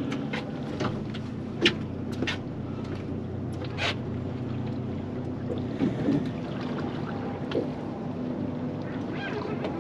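Outboard motor running slowly with a steady low hum, with a few sharp clicks and knocks in the first four seconds.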